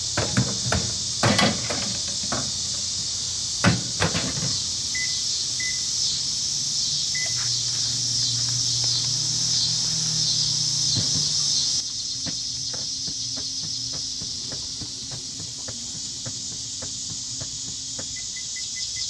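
Microwave oven being shut and started: clicks and knocks, a few short keypad beeps, then the oven running with a low hum. A quick run of beeps comes near the end. Crickets chirp steadily throughout.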